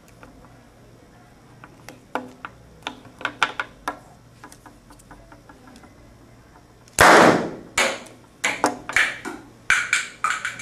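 Film canister exploding with one loud, sharp bang about seven seconds in. Light clicks and taps come before it, and a run of shorter sharp knocks follows.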